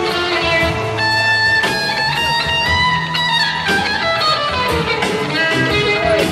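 Background guitar music: electric guitar playing held notes, some of which slide or bend in pitch.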